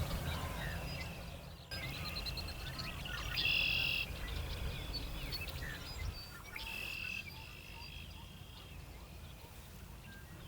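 Songbirds singing and chirping outdoors, with a louder buzzy trilled song phrase twice, over a low outdoor rumble; the sound fades toward the end.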